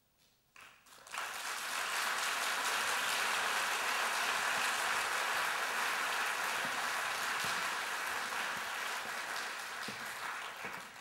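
Audience applauding, starting about a second in after a brief hush and holding steady until it fades at the end.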